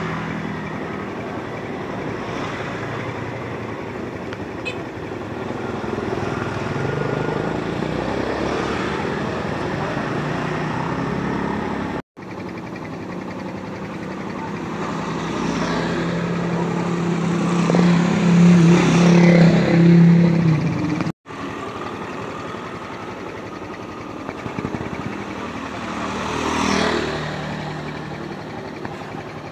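Motor vehicle traffic passing, with engine pitch rising and falling. It is loudest about two-thirds of the way through, with a smaller swell near the end. The sound drops out briefly twice.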